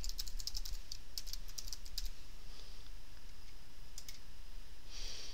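Rapid keystrokes on a computer keyboard as a password is typed, a quick run of clicks over the first two seconds. A single mouse click follows about four seconds in.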